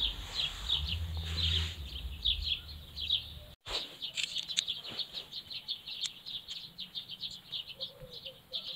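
Birds chirping: rapid, short high chirps, several a second. A low rumble runs under the first three seconds, and the sound drops out briefly about three and a half seconds in.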